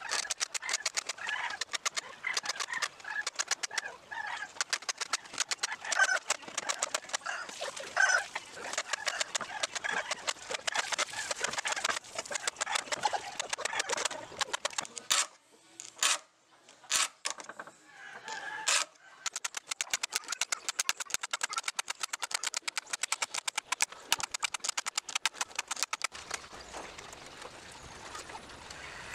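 Rapid repeated scraping or rasping strokes of hand tool work, several a second, that mostly pause about halfway through and fade near the end, with hens clucking in the background.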